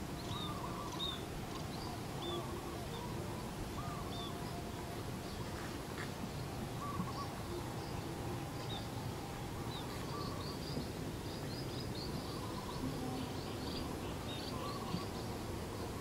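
Outdoor birdsong: small birds giving short, high chirps, repeated many times, over a steady rustling background noise.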